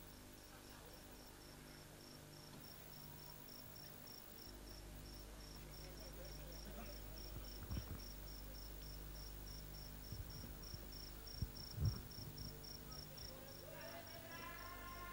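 A cricket chirping steadily, a little under four high chirps a second, over a low electrical hum. Two dull thumps come about 8 and 12 seconds in, and a brief voice near the end.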